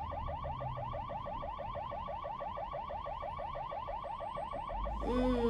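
Ambulance siren in fast yelp mode: a rapid rising sweep that repeats about eight times a second, steady throughout, over a low traffic rumble.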